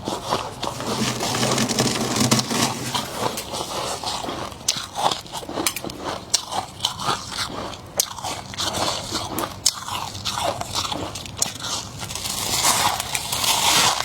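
Close-up biting and chewing of fluffy freezer frost: a run of soft crunches and crackles, thickest near the end.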